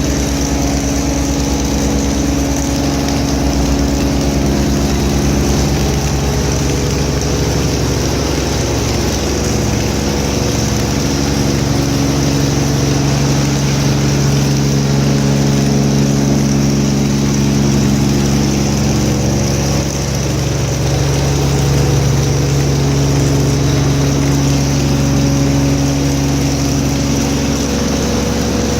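Cold-water pressure washer (21 litres a minute, 250 bar) running steadily, its engine droning under the hiss of the high-pressure water jet rinsing off the floor.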